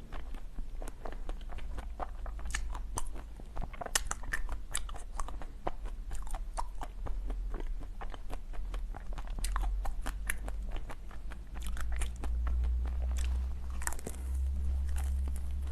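Ice being bitten and chewed close to the microphone, with irregular sharp crunches several times a second. A steady low hum sits underneath and gets louder in the last few seconds.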